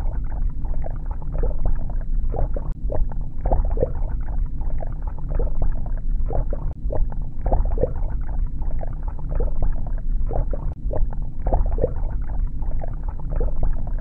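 Underwater ambience sound effect: a muffled, steady low rumble with short bubbling pops scattered throughout.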